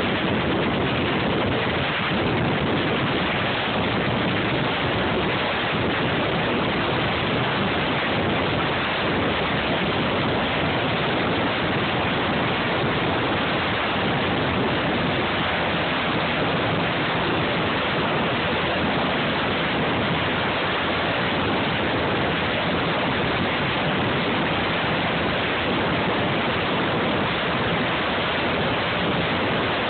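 Sikorsky S-92 helicopter running on the helideck with its rotors turning, ahead of take-off: a steady, unbroken rush of twin turboshaft engine and rotor noise at close range.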